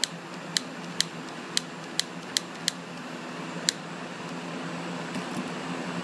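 Handheld butane torch's igniter clicked about eight times in quick, uneven succession, sharp high clicks, as it is struck to light. A steady flame hiss builds over the last couple of seconds once it catches.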